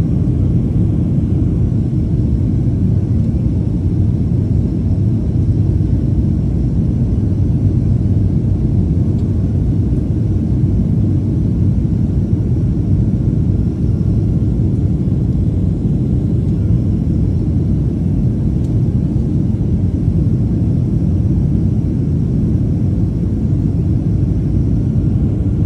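Cabin noise in a Boeing 737 airliner heard from a window seat beside the engine: a steady, loud, deep rumble of jet engine and airflow, with a faint steady whine above it, as the aircraft flies its landing approach.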